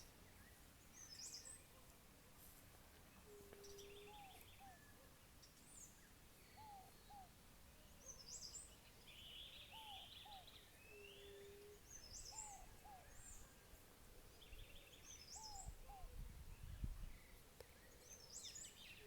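Faint morning birdsong from several birds: high chirps, short buzzy trills, a repeated pair of lower arched whistles every few seconds, and a short steady low note twice, about eight seconds apart. A brief low rumble comes near the end.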